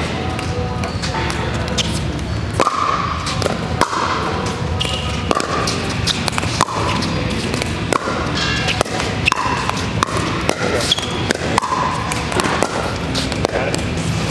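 Pickleball paddles hitting a hollow plastic ball in a doubles rally: repeated sharp hits at irregular spacing, over background music playing in a large hall.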